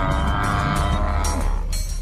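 An African buffalo bawling: one long, moo-like call that ends about one and a half seconds in, over a low steady rumble.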